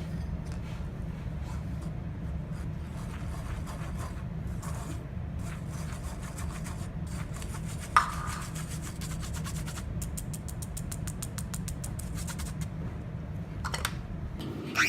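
Flour, baking powder and salt being sifted through a hand sieve: scraping and rubbing with quick taps, speeding up to a fast run of ticks in the second half, with one sharp knock about eight seconds in. A steady low hum lies underneath.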